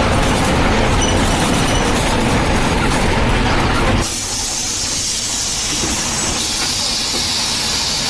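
Mercedes-Benz diesel bus engine running, a steady rumble. About halfway through, the sound changes suddenly to a hissing noise with much less rumble.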